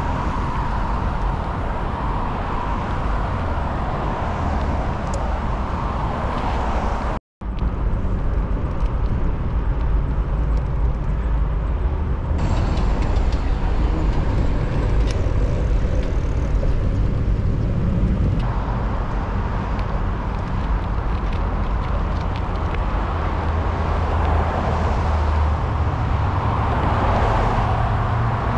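Road traffic noise with cars passing, and a steady low rumble, heard from a bicycle riding along the road shoulder. The sound cuts out completely for a moment about seven seconds in.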